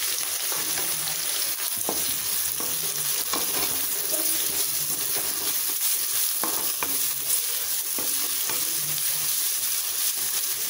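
Chopped onions sizzling in hot oil in a kadai as they are sautéed soft. The spatula stirs them and gives short scraping ticks now and then.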